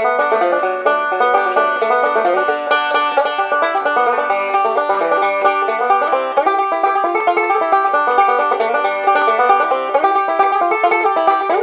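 Five-string banjo with a 1929 Gibson Oriole rim, Huber vintage tone ring and walnut neck, picked bluegrass style: a fast, continuous run of bright plucked notes.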